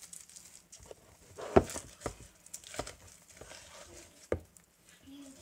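Hands working a whole raw chicken in a plastic tub, stuffing lemongrass into its cavity: soft wet handling and rustling, with three sharp knocks, the loudest about a second and a half in.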